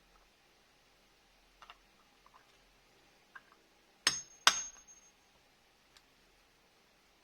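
Two sharp metallic clinks about half a second apart, midway through, the second ringing briefly, with a few faint clicks before them and a single tick later.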